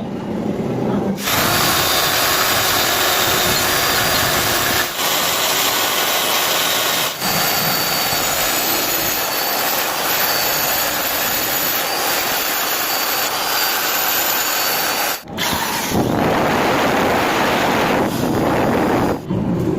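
Electric power tool drilling or grinding into a steel gear during a repair of its broken teeth. It runs in long stretches, with short breaks about 5 and 7 seconds in, a brief stop near 15 seconds, and a last stretch near the end.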